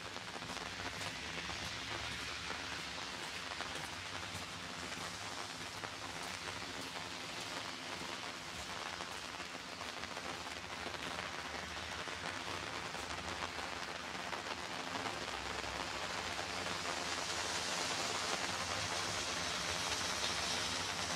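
Steady rain falling, with many small drop ticks through an even hiss. The hiss grows louder over the last few seconds.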